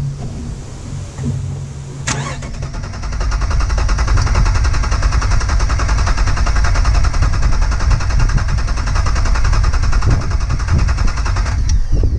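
Jeep Wrangler TJ engine being cranked by its starter after a click about two seconds in. It turns over steadily for about nine seconds without firing, then stops. It will not catch even with a dose of starting fluid, the no-start condition being diagnosed.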